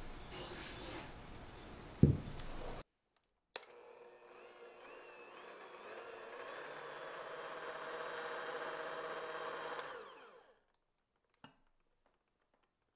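Electric hand mixer whipping egg whites and sugar into meringue in a glass bowl: a steady motor hum from about three and a half seconds in, slowly growing louder, then switched off suddenly near the end. Before it, a short hiss and one sharp knock about two seconds in.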